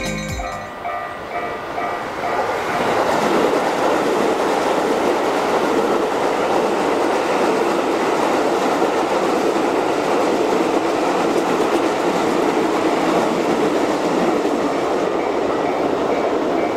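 A train running past over a level crossing: a steady rush of wheel and running noise that builds over the first couple of seconds and holds. The crossing's warning bells ring in a repeating pattern underneath, heard most clearly at the start before the train noise covers them.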